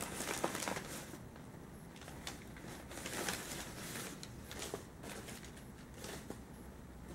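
Intermittent rustling and crinkling of newspaper packing and cardboard as hands dig through a shipping box, with a few sharp clicks in the first second.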